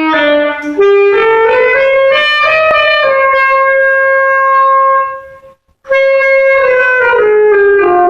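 Solo saxophone playing a slow melody: a rising phrase up to a long held note, a short breath gap about five and a half seconds in, then a falling phrase.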